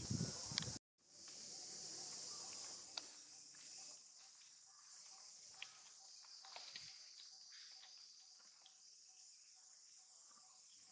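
Steady high-pitched buzz of an insect chorus, with a few faint clicks and rustles over it. A louder rustling in the first second cuts off abruptly.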